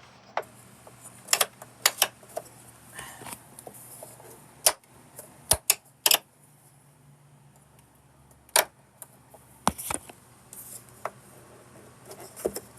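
Irregular sharp plastic clicks and knocks from a Bissell PowerForce Helix upright vacuum being handled, about a dozen in all, the loudest near the middle.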